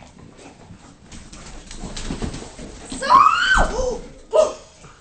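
English bulldogs play-fighting: low, rough grumbling, then about three seconds in a loud pitched vocalization that rises and falls in pitch for about a second, and a shorter call near the end.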